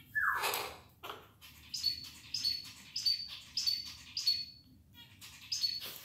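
Pet parrot calls: a loud, harsh squawk that falls in pitch right at the start and a shorter one about a second in, then a run of about five short, high chirps roughly every half second, and more chirps near the end.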